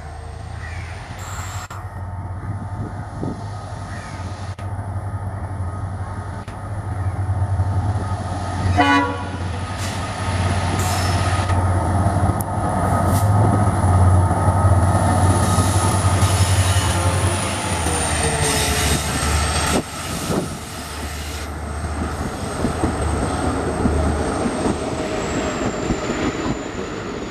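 Indian Railways WDP-4D diesel-electric locomotive, with its EMD two-stroke V16 engine, running past with a steady low engine drone and a short horn blast about nine seconds in. From about halfway through, the engine drone fades and the passenger coaches roll by with wheel clatter on the rails.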